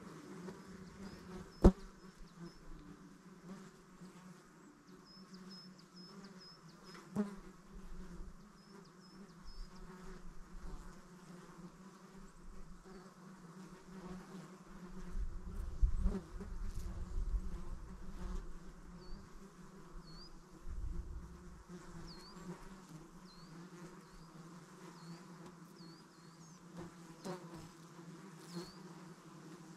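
Insects buzzing steadily, with a few short high chirps. A sharp knock about two seconds in is the loudest sound, and there is a low rumble about halfway through.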